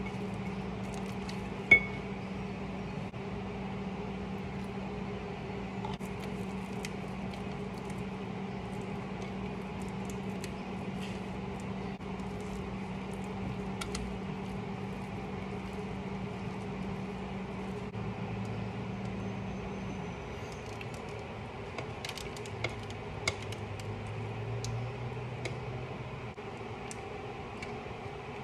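Silicone spatula stirring thick banana bread batter in a mixing bowl: soft scraping and squelching with scattered light clicks of the spatula against the bowl, and one sharper knock about two seconds in. A steady low hum runs underneath and drops in pitch about two-thirds of the way through.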